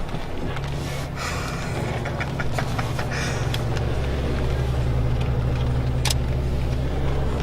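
Jeep engine running steadily at low speed, with scattered light clicks and knocks over it.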